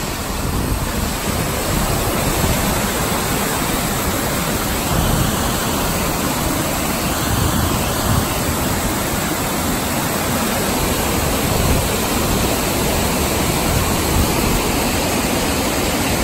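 Waterfall rushing: a steady wash of white water pouring down a rocky cascade into a plunge pool.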